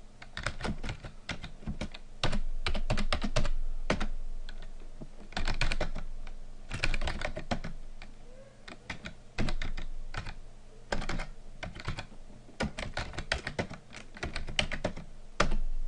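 Computer keyboard typing in quick runs of keystrokes with short pauses between them, and a louder keystroke near the end.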